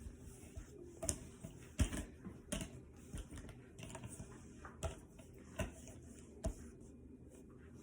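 Jigsaw puzzle pieces clicking and tapping as they are picked through, handled and set down, in irregular light knocks with a sharper one about two seconds in.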